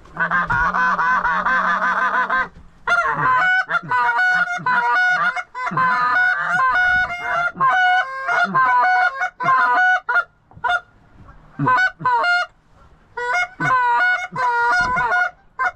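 Geese honking: a dense, overlapping clamour of many honks for the first couple of seconds, then a long run of separate honks, quieter for a couple of seconds about two-thirds through.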